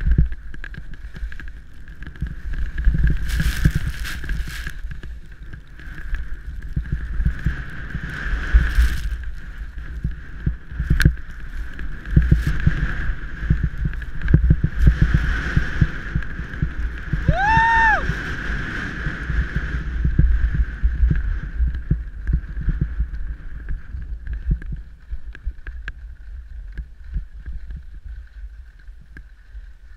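Skis running fast down a snow slope, with heavy wind buffeting on a body-worn action camera's microphone and the ski edges scraping and chattering over the snow. About two-thirds of the way through comes a short call that rises and falls in pitch.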